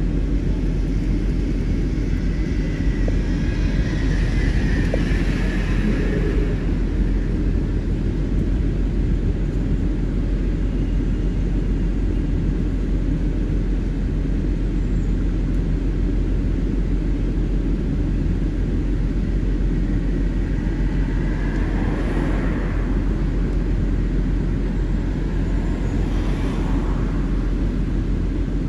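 Steady low rumble of street traffic, with vehicles passing by twice, about five seconds in and again near twenty-two seconds.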